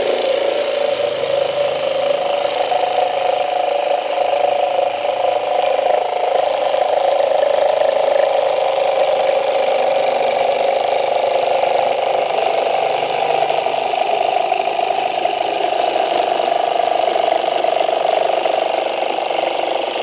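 Parkside 20V cordless jigsaw running steadily in jigsaw mode, pendulum action off, its wood-cutting blade sawing a curve through laminate flooring.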